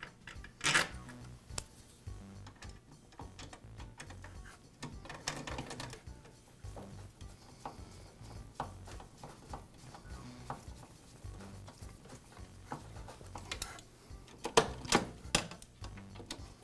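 A hand screwdriver and screws clicking and knocking against the metal motor housing and plastic body of a Makita table saw as the housing screws are set and driven in by hand. There are scattered clicks, a rustle about five seconds in, and a cluster of sharper clicks near the end.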